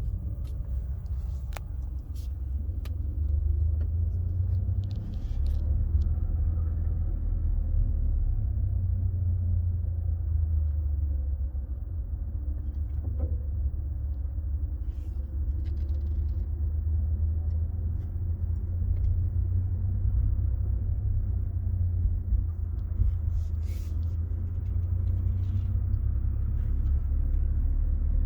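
2021 BMW M2 Competition driving slowly over uneven pavement, a steady low rumble from the car, broken by a few short, sharp metallic creaks from the rear end as it goes over dips. The creaking is a fault the new car has developed, showing over uneven surfaces after it has been parked for a few hours; its cause is not yet known.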